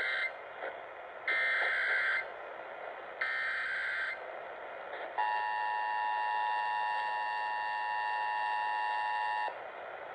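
Emergency Alert System SAME header: the end of one data burst, then two more about a second long and a second apart. It is followed by the EAS two-tone attention signal (853 and 960 Hz together), held steady for about four seconds and cutting off sharply, over a faint radio hiss.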